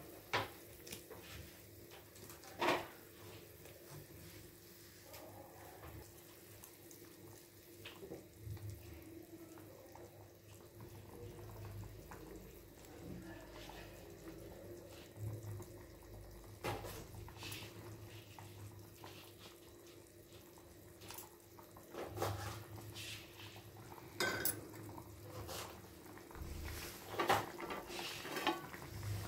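Paneer curry gravy bubbling faintly as it boils in a kadai, with scattered clinks and knocks of a spatula against the pan and a faint steady hum.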